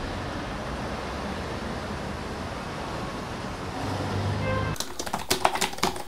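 Steady city traffic noise that cuts off sharply about three-quarters of the way in. Then comes rapid typing on a laptop keyboard, a quick run of clicks.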